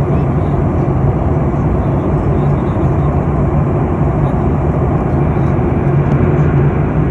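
Steady drone of jet engines and rushing air heard inside a passenger airliner's cabin, with a constant low hum beneath it.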